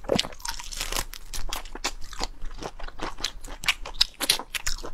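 Close-miked biting and chewing of a raw marinated black tiger prawn, with many sharp, rapid crunches.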